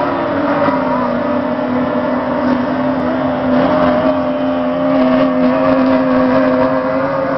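Racing tunnel boats' 30 hp outboard motors running at high, steady revs. The engine note dips slightly in the first half second, then holds.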